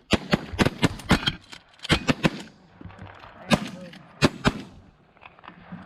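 Several hunters' shotguns firing a rapid, overlapping volley at geese: a quick string of shots in the first two and a half seconds, then three more spaced out between about three and a half and four and a half seconds in.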